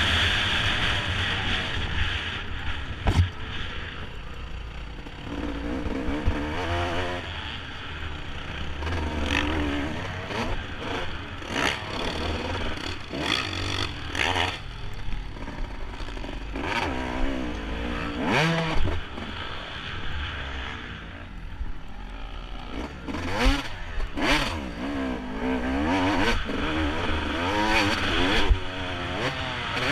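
Motocross bike engine heard from an onboard camera, revving up and falling back again and again as the rider accelerates and shuts off through the corners. Sharp knocks and clatter come several times as the bike crashes over ruts and bumps.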